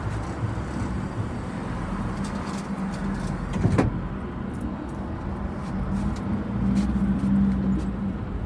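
City bus heard from inside while driving: a steady low engine drone that swells for a moment about two-thirds of the way in, with one sharp knock about four seconds in.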